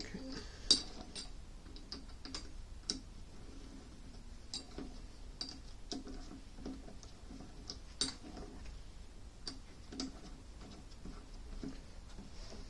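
Irregular metal clicks and light knocks from the jaws of a lathe chuck being adjusted by hand, with one sharper knock about a second in.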